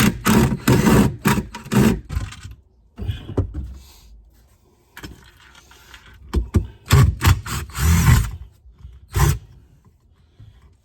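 Wooden cabinet being forced loose from the platform it is screwed to, in repeated bursts of wood scraping and knocking with short pauses between. The fastenings tear into the platform's wood as it comes free.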